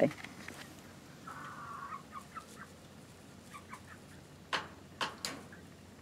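Young chickens calling softly: a short high call about a second in, then a few quiet clucks, with two sharp clicks near the end.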